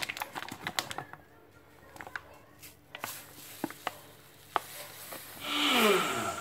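Plastic bag crinkling, then sugar poured from the bag into an empty glass blender jug: a few scattered ticks of grains, then, about five seconds in, a second-long rush of sugar pouring into the glass with a falling tone in it.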